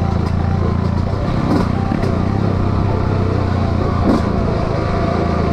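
Dirt bike engine running at steady revs while riding along a trail.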